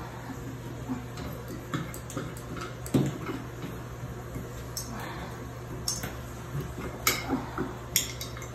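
Scattered light clinks and knocks, sharp and spaced about a second apart, from the chrome bathtub spout and tap handle being handled, over a steady low hum.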